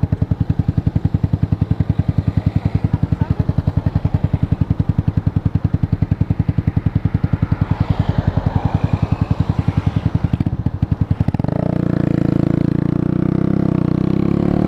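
125cc cruiser motorcycle engine idling with an even, rapid pulsing. About eleven seconds in it rises in revs and runs steadier and louder.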